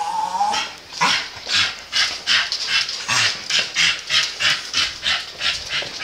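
A dog panting rapidly, short hissy breaths at about three a second.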